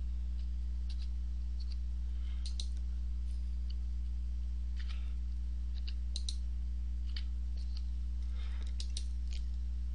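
Scattered light computer keyboard keystrokes and mouse clicks as numbers are typed into form fields, over a steady low hum.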